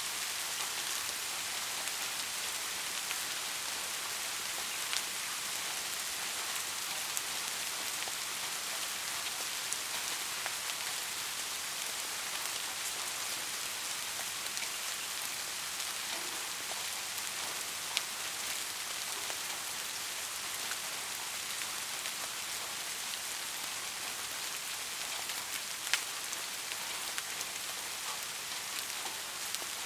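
Steady rain falling in an even hiss, with now and then a single louder, sharp drop tick.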